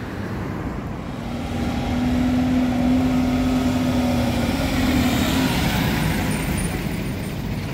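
City bus driving past close by, its engine running. The sound builds over the first few seconds, carries a steady hum from about one to five seconds in, then eases off.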